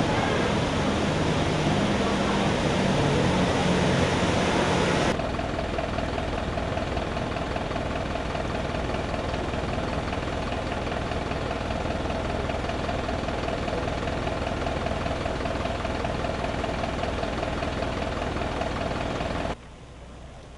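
For about five seconds, floodwater rushes and churns as a heavy truck wades through it with its engine running. Then comes steady vehicle engine idling mixed with rain noise. It drops suddenly to a softer rain hiss about a second before the end.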